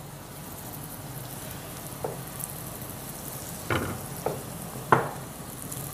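Lachha paratha frying in ghee in a pan on a gas stove, with a steady sizzle. A few short, sharp knocks sound over the second half, the loudest near the end.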